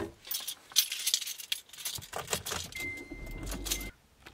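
Car keys jangling and clicking in a hand. Near the end a steady high tone sounds over a low hum for about a second, then cuts off abruptly.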